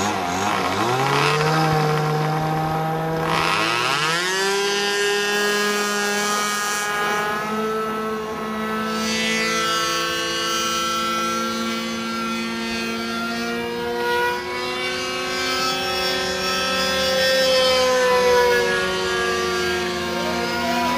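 RC Skylark model airplane's engine opening up in two steps, about a second in and again near four seconds, as the plane takes off. It then runs at a high, steady pitch that drifts slowly up and down as the plane flies.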